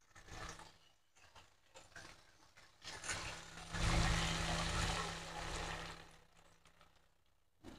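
Water poured from a plastic jug into a hot wok of stir-fry, hissing and sizzling for about two seconds from just before the middle, then fading away. Before the pour there is only faint, scattered crackling from the pan.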